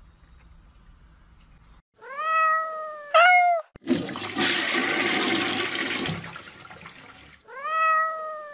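A cat meowing twice in quick succession, then a loud rush of splashing water for about three and a half seconds, then one more meow near the end, from wet tabby cats being bathed in a plastic basin.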